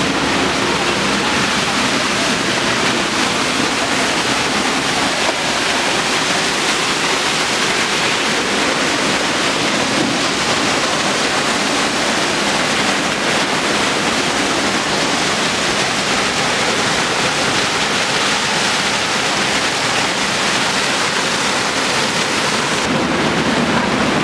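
Muddy flash-flood water from a swollen monsoon stream rushing through a street: a loud, steady rushing.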